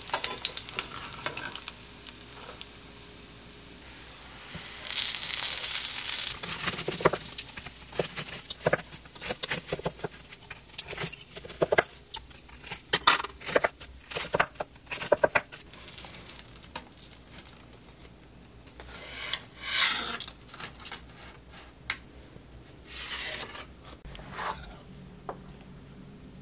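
Breaded pork cutlet sizzling in shallow oil in a frying pan as it is lifted out. Then a knife crunches through its crisp crust with quick sharp taps on a wooden cutting board. Near the end come a few short clinks and rustles of tableware.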